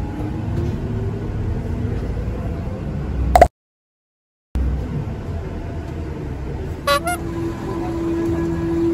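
City bus running, heard from inside the cabin: a steady rumble with a tone that slowly rises as the bus gathers speed. About three seconds in comes a loud, short ringing tone, then a second of silence. Near the end another short ringing sound is followed by a steady tone.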